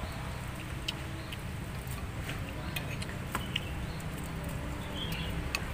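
Metal spoon and fork clinking lightly against a ceramic soup bowl a few times, over a steady low background rumble.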